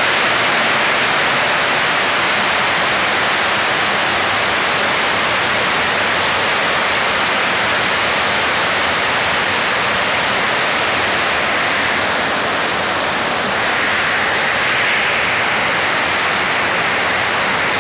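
Heavy downpour of rain, a steady loud wash of falling water with runoff pouring off a roof edge.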